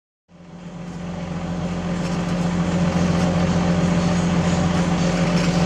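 Heavy diesel engine of construction machinery running steadily, fading in from silence just after the start and reaching full level about two seconds in.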